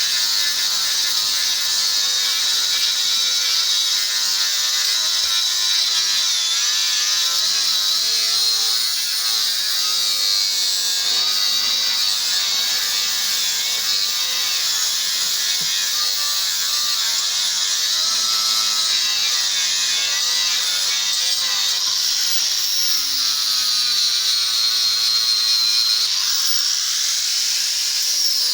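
Handheld power tool, likely a sander, running continuously on car bodywork. Its high whine wavers in pitch as the load on it changes.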